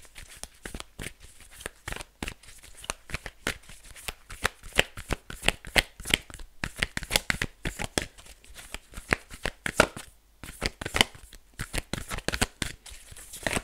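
A deck of oracle cards being shuffled in the hands: a quick, uneven run of sharp clicks and slaps of card against card, with a few short pauses.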